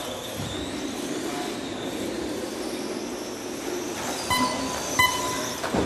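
1/12-scale electric on-road RC cars running laps on a carpet track, giving a steady whir of motors and tyres. About two-thirds of the way in come two short electronic beeps less than a second apart.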